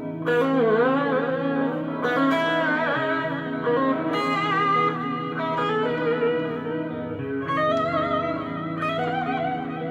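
Chinese-made Ibanez JEM-style electric guitar playing a slow lead melody, sustained notes with wide vibrato and bends, over steady lower held notes.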